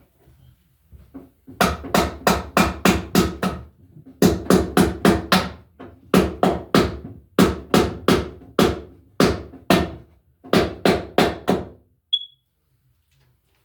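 Hammer driving the nails of a plastic electrical junction box into a wooden stud, in six quick runs of sharp blows, about four a second.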